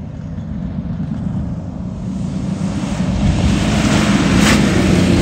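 Toyota Tacoma pickup rally truck driving hard along a sandy dirt track, its engine and tyre noise on sand and gravel growing steadily louder as it approaches and draws close near the end, with a couple of brief sharp knocks near the end.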